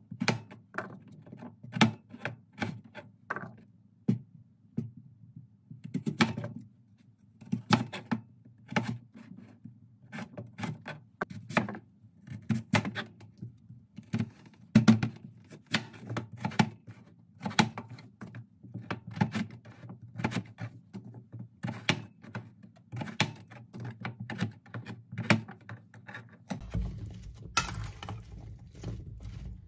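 Santoku knife chopping through peeled Korean radish onto a plastic cutting board: a run of sharp knocks, roughly one or two a second, unevenly spaced. About 27 seconds in, the knocks give way to a rustle and hiss as the radish cubes are tossed by hand in a stainless steel bowl.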